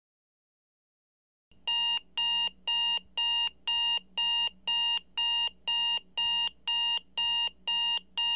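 Electronic alarm clock beeping: short, steady, high-pitched beeps about twice a second, starting about a second and a half in.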